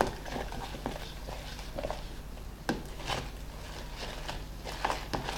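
Glue-and-borax slime being stirred and worked by hand, giving scattered soft sticky clicks and squelches as it starts to come together.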